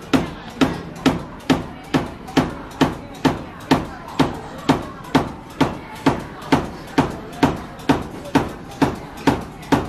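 Large rectangular noodle knife chopping down through folded sheets of dough onto a cutting board, cutting hand-made noodles: a steady knock a little more than twice a second.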